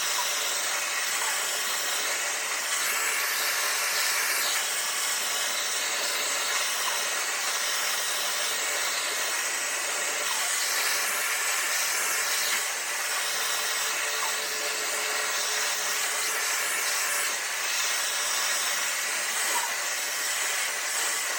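Dyson Supersonic hair dryer blowing steadily on its high heat, high power setting: an even rush of air.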